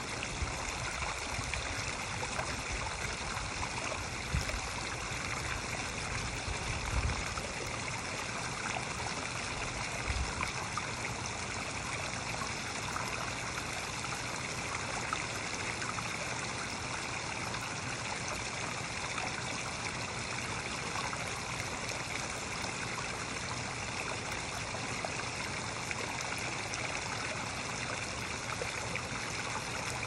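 Small rock waterfall spilling into a garden pond: steady splashing and trickling water.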